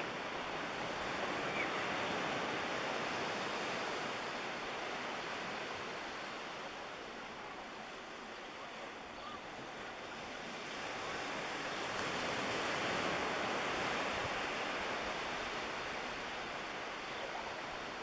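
Small waves washing on a beach as a steady rush that swells and eases, louder twice.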